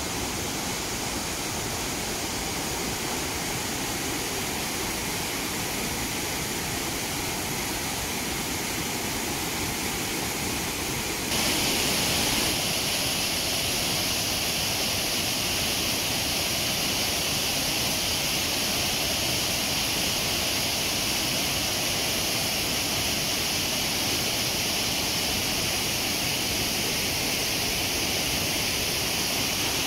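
Whitewater rapids rushing over rocks, high with spring meltwater: a steady, even noise of water. About eleven seconds in it steps up, louder and brighter, and stays so.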